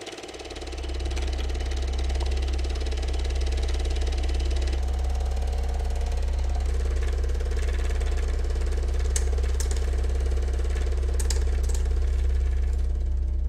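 Film projector running: a steady mechanical clatter over a constant low hum that swells in during the first second.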